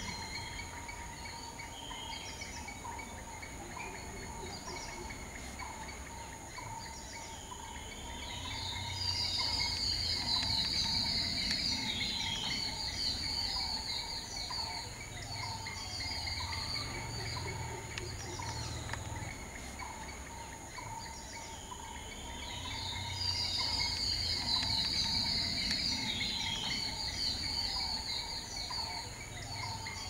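Forest ambience: insects trilling steadily at several pitches, with small repeated bird chirps. Twice, about nine seconds in and again about twenty-three seconds in, a louder high buzzing call swells for about five seconds and fades.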